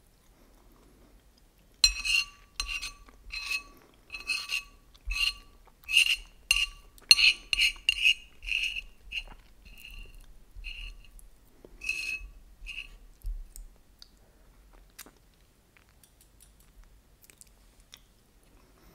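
Cutlery clinking against a dish, about twenty ringing taps in quick, uneven succession that start about two seconds in and stop about two-thirds of the way through.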